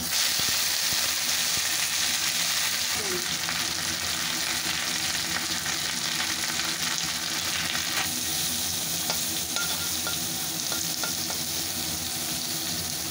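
Bitter gourd leaves sizzling hard in hot mustard oil in a kadai, the sizzle starting suddenly as they drop in and easing slightly as they fry, with a spatula turning them near the end.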